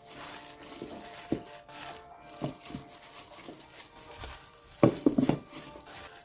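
Sliced vegetables being dropped into a plastic food container and handled with a plastic-gloved hand: crinkling and a few sharp knocks, with the loudest clatter about five seconds in. Soft background music plays underneath.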